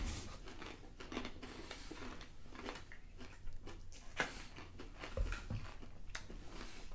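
Irregular small clicks and crackles of people crunching a dry snack mix of croutons, half-popped corn and edamame beans and handling clear plastic snack trays, with a plastic water bottle being drunk from.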